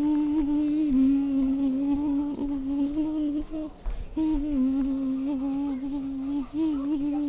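A voice humming one long, low, steady note with slight wobbles in pitch, breaking off briefly about halfway before going on.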